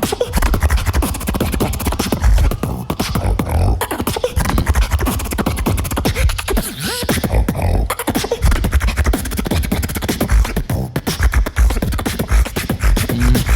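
Beatboxing: a rapid, dense run of vocal percussion with heavy bass kicks and sharp snare and hi-hat sounds made with the mouth, without pause.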